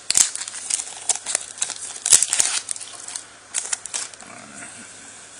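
Pokémon booster pack packaging crinkling and tearing as it is handled and opened: a quick run of crackles and snaps, loudest about two seconds in, thinning out after about four seconds.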